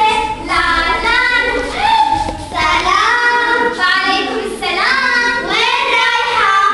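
A young performer's high voice singing a melodic line in Arabic, each note held and sliding in pitch.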